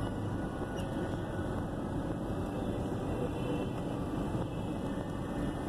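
Steady rumble of road and engine noise heard from inside a moving car's cabin.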